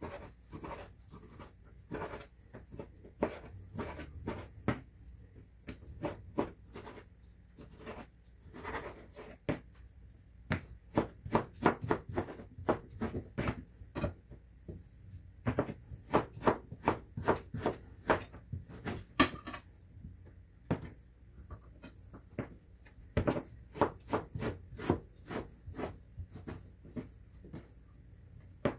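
Kitchen knife slicing raw pork on a wooden cutting board: the blade knocks on the board in runs of quick strokes, about two to three a second, with short pauses between runs.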